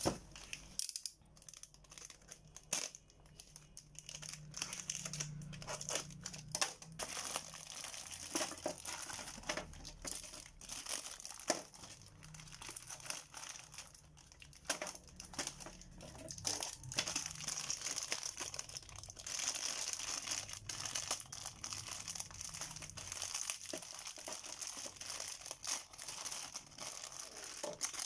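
Clear plastic bags crinkling as they are handled and pulled open, with many small sharp clicks and taps throughout.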